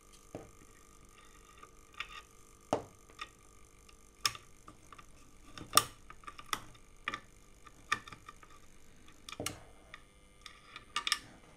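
About a dozen sharp, irregularly spaced clicks and clacks from small parts on the opened electrotherapy unit's circuit board, where fuses are being pulled out while the unit's clattering is traced.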